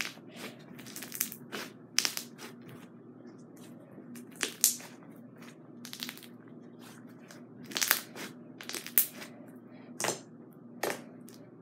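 Thick bead-filled crunchy slime being pressed, squeezed and kneaded by hand, giving irregular crackles and sharp pops as trapped air bubbles burst.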